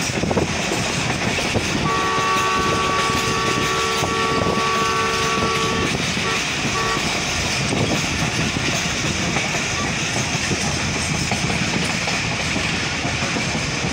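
Passenger train running at speed, heard from on board: a steady noise of wheels on rail. About two seconds in, the locomotive horn sounds one long chord blast of about four seconds, then two short toots.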